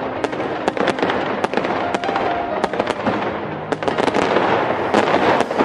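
Fireworks going off in quick succession: sharp bangs about two or three a second over a dense crackling.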